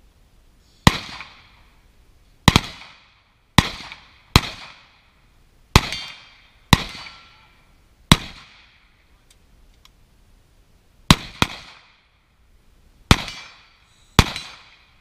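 Carbine fired in single shots: eleven sharp cracks at an uneven pace of roughly one a second, each followed by a short echoing tail. There is a pause of about three seconds before a quick pair.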